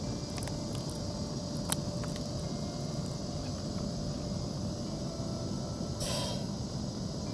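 A plastic water bottle handled with a few sharp clicks, then water poured from it into a metal camping pot about six seconds in, as a short splashing pour. A steady low rushing noise runs underneath.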